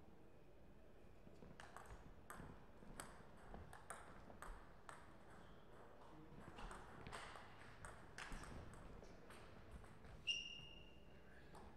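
Table tennis rally, faint: the ball clicks sharply off the paddles and the table in an irregular back-and-forth. Near the end a short, clear high beep rings out, the loudest sound.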